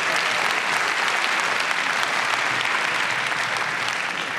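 Large audience applauding, a dense, even clapping that tapers off slightly near the end.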